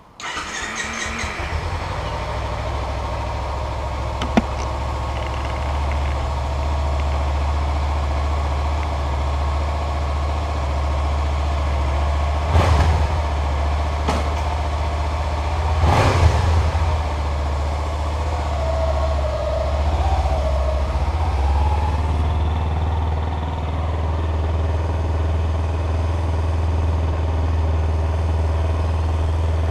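Kawasaki Ninja 300's parallel-twin engine starting suddenly and settling into a steady idle. A few sharp knocks come about halfway through, and the bike moves off slowly in the last seconds.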